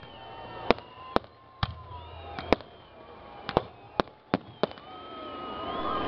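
Aerial fireworks bursting: about eight sharp bangs at uneven intervals, with faint whistling tones between them and a rising wash of noise near the end.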